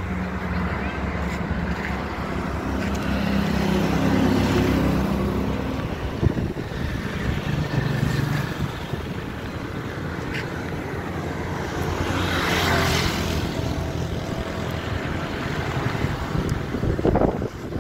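Motor traffic running close by with a steady engine hum; one vehicle passes loudly about twelve seconds in.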